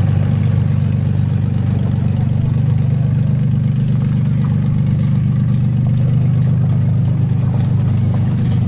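Demolition derby car engines idling, a loud, steady low rumble that holds unchanged.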